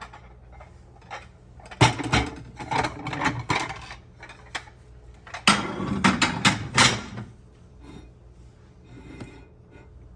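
Kitchenware clattering and knocking on a counter in two bursts a few seconds apart, as a plate is fetched and set down.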